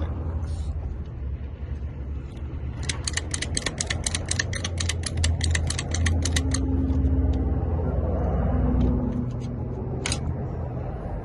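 A commercial door lock being picked open: a quick, even run of sharp metallic clicks, about six a second, for some three seconds, then a few scattered clicks, over a steady low rumble.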